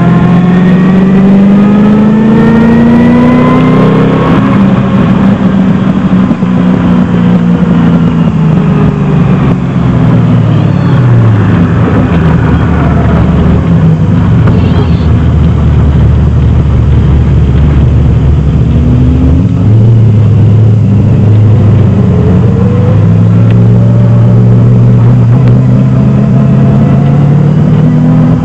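The 327 cubic-inch Chevrolet small-block V8 of a 1971 Datsun 240Z, heard loud from inside the cabin while it is driven on a racetrack. It revs up at first, then drops away for several seconds as the car slows for a turn, stays low for a while, and builds again about two-thirds of the way through before holding steady.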